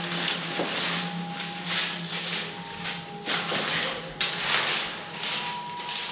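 Paper sticky notes rustling and crinkling in repeated handfuls as they are gathered up and crushed by hand, over a faint steady hum.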